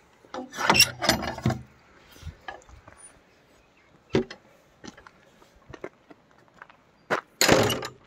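Metal latch of a wooden field gate clanking and rattling as the gate is opened, about half a second in, and again as it is shut near the end. Footsteps crunch on a gravel path in between.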